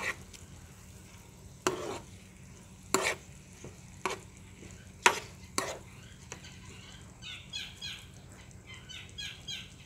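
Stir-frying vegetables in a nonstick frying pan: a metal spatula knocks and scrapes against the pan six times in the first six seconds. In the last few seconds a bird chirps in quick repeated bursts.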